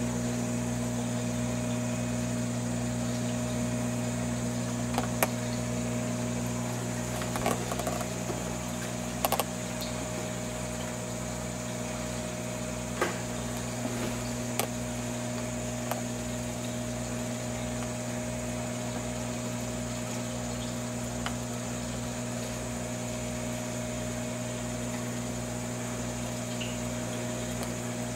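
Steady electric hum of an aquarium filter pump, with a faint watery wash and a few short clicks scattered through the first half.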